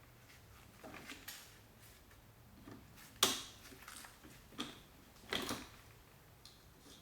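Irregular light clicks and knocks of small metal parts being handled and fitted on the opener's carriage. The sharpest comes about three seconds in, and a couple more follow near the end.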